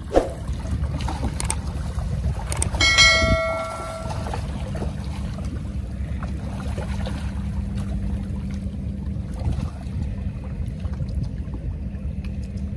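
A single metallic clang rings out about three seconds in and fades over about a second and a half, over a steady low rumble. A sharp knock comes right at the start.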